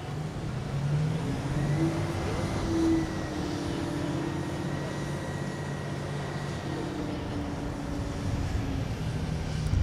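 Military helicopter running, a steady turbine whine over the rotor's drone, with slight shifts in pitch.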